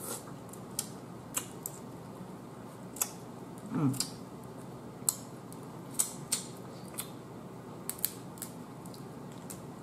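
Close-up eating sounds of boiled blue crab: scattered sharp clicks and smacks as crab meat is picked and sucked from the shell, with a short hummed note about four seconds in.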